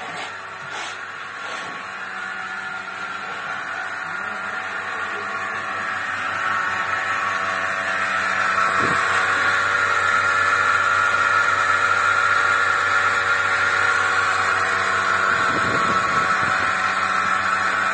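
Milking machine's vacuum pump running steadily with a hiss, growing louder over the first several seconds and then holding level.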